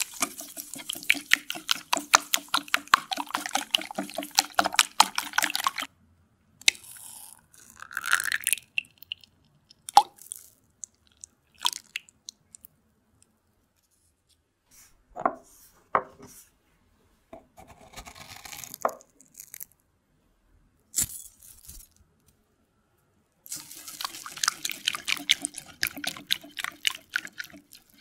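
Silicone whisk beating eggs and sugar in a glass bowl: quick, even strokes with wet sloshing and clicking against the glass. In the middle comes a quieter stretch of a few scattered short sounds as more ingredients go in, and near the end the whisking resumes on the thinner batter.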